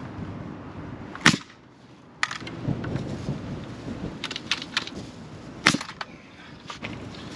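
Carpentry work on the wooden frame: two loud sharp knocks, one about a second in and one near six seconds, with lighter taps and clicks between.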